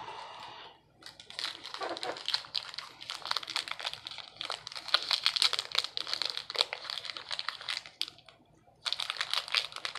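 Plastic wrapper of a Topps WWE trading card pack crinkling and crackling as hands struggle to tear it open, with a short pause about eight seconds in.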